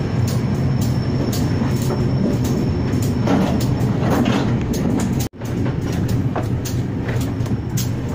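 Local passenger train running along the track, heard from on board: a steady low rumble and hum with scattered clicks and rattles. The sound cuts out for an instant about five seconds in.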